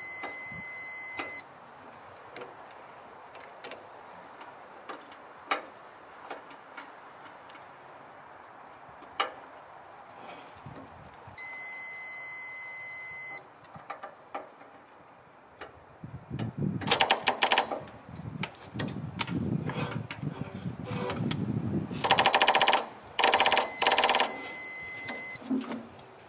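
Jump starter sounding a long electronic beep, about two seconds each, three times about ten seconds apart. Between the second and third beeps the Ford 3000 tractor's starter tries to crank the engine in several rapid clicking bursts over about seven seconds, and the engine does not start, which the owner puts down to dirty battery cables.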